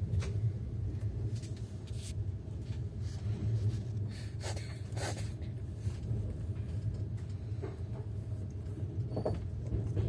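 Steady low rumble of a moving passenger train heard from inside its compartment, with a few brief clicks around the middle.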